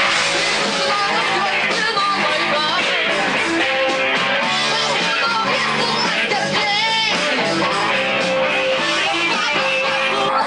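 Rock music with guitar playing in a dense, steady mix.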